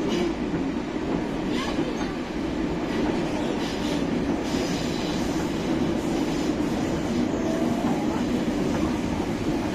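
Moscow Metro train running through a tunnel, heard from inside the carriage: a steady rumble of wheels and running gear on the rails, with a faint whine sliding in pitch about eight seconds in.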